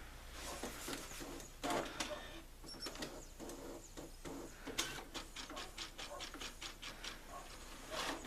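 Brother inkjet printer working through a print or cleaning cycle: clicks and short whirs of the print-head carriage and paper-feed mechanism, settling into a string of clicks at about four a second in the second half.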